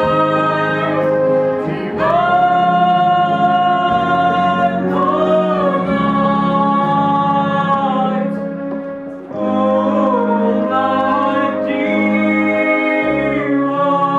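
Choir singing a Christmas carol in long held notes. The singing fades briefly about eight to nine seconds in, then comes back with the next phrase.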